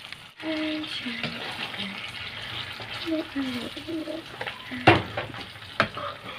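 Tomato spaghetti sauce sizzling in a hot non-stick frying pan with chopped hotdog and corned beef while a spatula stirs it, with two sharp knocks of the spatula against the pan near the end.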